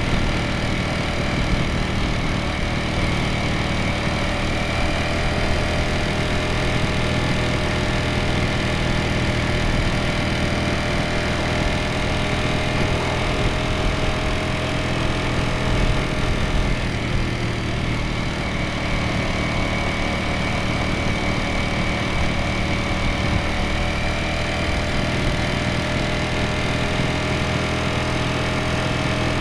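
Ducati Streetfighter V4S's 1103 cc V4 engine running steadily at an even engine speed, with no sharp revving.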